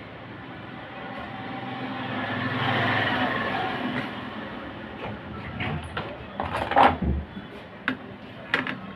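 A low rumble swells and fades over a few seconds, then a series of sharp clicks and snaps as side cutters trim the leads of newly fitted resistors on an induction cooktop's circuit board. The loudest snap comes a little before the end.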